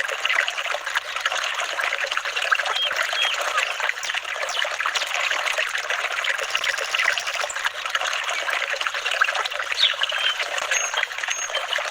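Gently flowing water trickling and babbling steadily.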